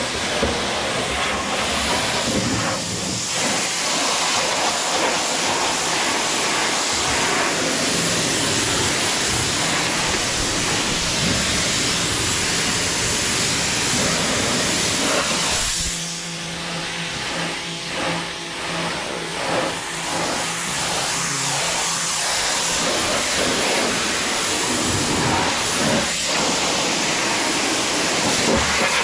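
Pressure washer spraying water onto a jon boat's hull, a loud steady hiss of water jet and splatter. For several seconds in the middle the spray eases and a lower hum with a steady tone comes through, then the full spray resumes.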